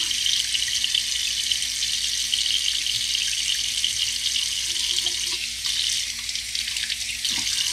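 Kitchen faucet running a steady stream into a sink, the water splashing over hands and raw meat being rinsed under it.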